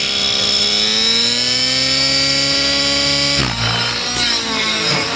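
Nitro-powered RC helicopter's glow engine and rotor running, the pitch climbing steadily as it spools up for about three seconds. Then it changes abruptly to the engine at flying speed, its note wavering up and down.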